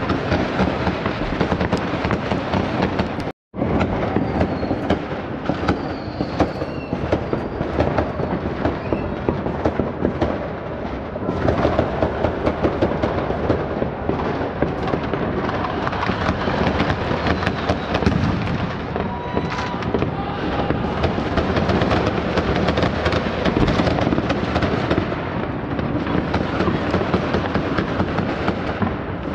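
Massed New Year fireworks: a dense, continuous crackle of overlapping bangs and pops from many fireworks at once. The sound cuts out completely for a split second about three seconds in.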